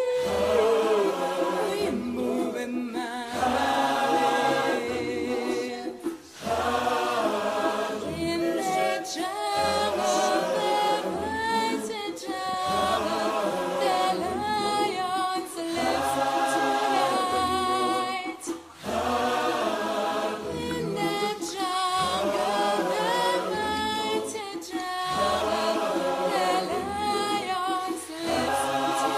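Background music: a choir singing in several voice parts, in phrases with short breaks between them.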